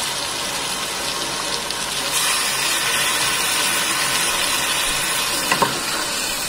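Tomato, chilli and herb masala sizzling in a metal pot as a liquid is poured in, a steady hiss that grows brighter about two seconds in. A couple of light knocks come near the end.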